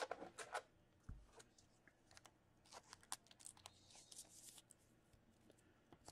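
Faint clicks, taps and rustling of trading cards being handled and set down on a tabletop.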